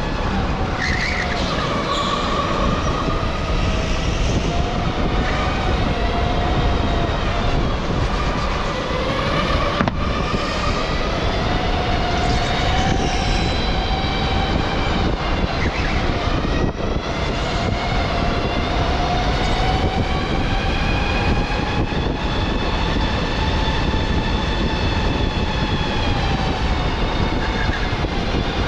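Electric go-kart motor whining under a steady rumble of tyres and wind, the whine's pitch falling and rising as the kart slows and speeds up through the laps.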